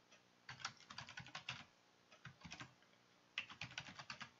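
Typing on a computer keyboard: quick runs of keystrokes, a first flurry about half a second in, a few keys near the middle, and another flurry in the last second.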